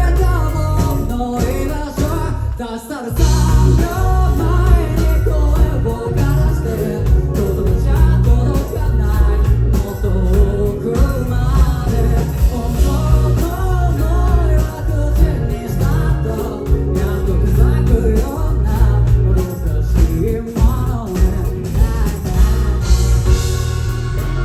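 Rock band playing live, with a lead vocal sung over a full band and a heavy bass end. There is a short break in the music just before three seconds in.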